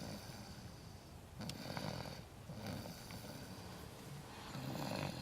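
A sleeping baby snoring, with a rasping snore on each breath, repeating every second or two.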